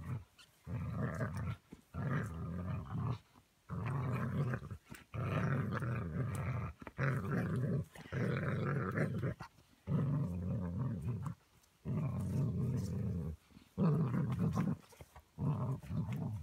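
A dog growling in play while tugging on a toy: about ten low, rough growls in a row, each lasting one to one and a half seconds, with short breaks for breath between them.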